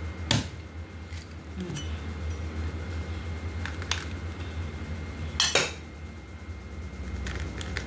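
Metal knife blades cutting open a young green coconut: a handful of separate sharp knocks, clicks and clinks of steel on the husk and shell and on the stone counter, the loudest about five and a half seconds in.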